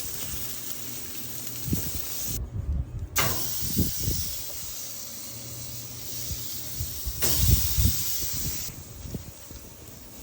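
Chicken leg quarters sizzling and hissing on a hot grill, with a few low bumps. The hiss cuts out briefly about two and a half seconds in.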